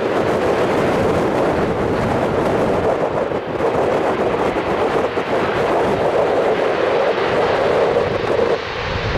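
British Airways Embraer E190's twin CF34 turbofan engines during the landing rollout: a loud, steady rush of jet noise that eases off near the end.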